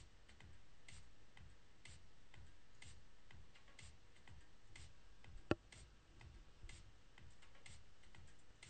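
Faint clicking of a MIDI DJ/VJ controller's knobs and buttons being worked by hand, ticking about once a second, with one sharper click about five and a half seconds in.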